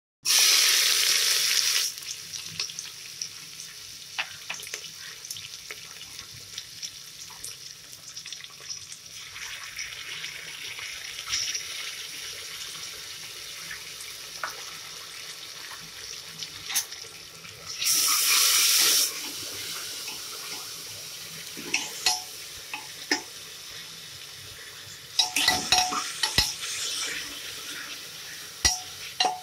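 Sliced onions dropped into hot oil in an open pressure cooker: a loud burst of sizzling that settles into steady frying. The sizzle flares loudly again once partway through, and near the end a metal spatula scrapes and knocks against the pan as the onions are stirred.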